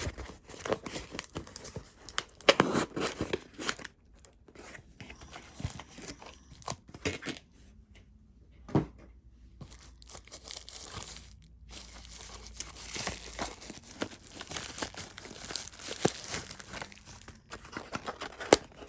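Knife packaging being opened by hand: irregular tearing, crinkling and rustling of paper and plastic wrapping, in fits and starts with a brief pause about halfway through.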